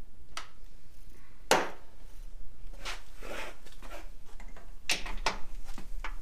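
Metal hand tools clinking: a socket extension being fitted to a torque wrench and set on a suspension bolt, with a handful of separate sharp clicks and knocks, the loudest about one and a half seconds in.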